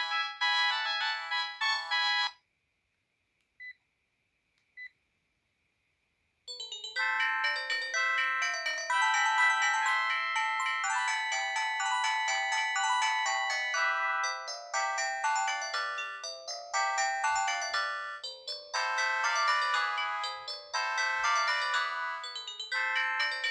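Polyphonic ringtones playing from a Sharp GX12 mobile phone's speaker. One melody stops about two seconds in, followed by a few seconds of near quiet with two short beeps. Another melody starts about six and a half seconds in and plays on.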